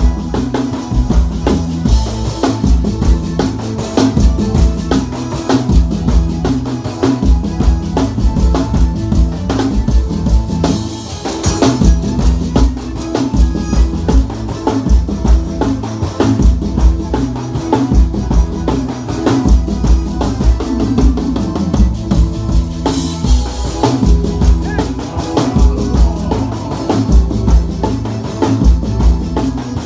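Live band playing an instrumental groove through a PA at a sound check: drum kit with a steady, regular kick and snare beat under a stepping bass line and keyboard chords.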